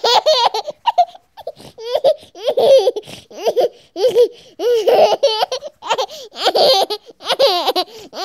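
High-pitched laughter in short, wavering peals, repeating over and over with about a second between them.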